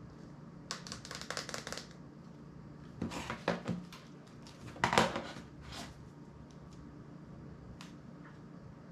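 Small hard clicks and taps of a smartphone being taken apart by hand as its screen flex cable is unplugged and the display is separated from the frame. There is a quick rattle of clicks about a second in, more clicks around three seconds, and a sharper single knock about five seconds in.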